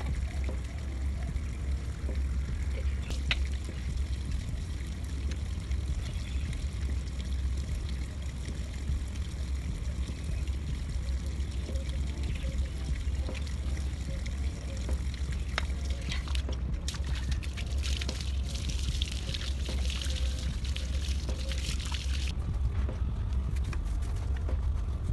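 Water running and splashing from a garden hose during a dog's bath, over a steady low rumble. For several seconds near the end the water's hiss grows louder, then cuts off suddenly.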